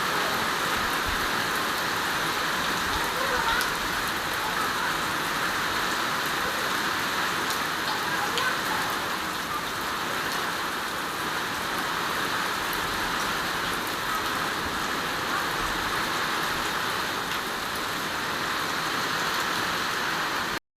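Steady rain falling, with scattered drops ticking on surfaces.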